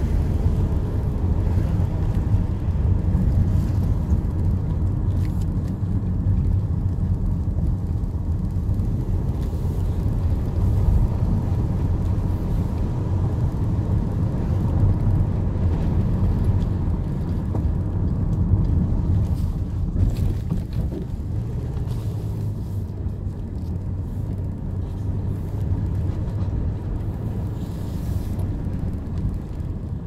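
Steady low rumble of a car's engine and road noise, heard from inside the cabin while driving slowly. It eases off slightly over the last third.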